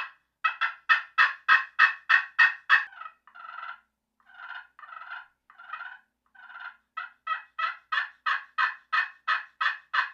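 Hayes slate pot call played with a striker, imitating a hen turkey. A quick run of about eight loud yelps, then softer, drawn-out scratchy notes, then another run of a dozen or so yelps that builds louder.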